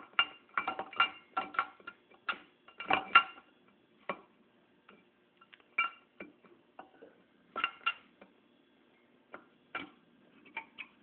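Irregular metal clinks and taps, several with a brief ring, as a camshaft with its pressed-on gear and bearing is slid into the engine block and its gear is brought into mesh. The loudest clink comes about three seconds in.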